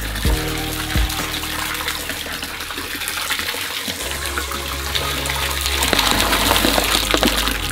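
Soft drinks poured from two plastic bottles at once into a large plastic barrel: a steady splashing rush of liquid that grows louder in the last couple of seconds.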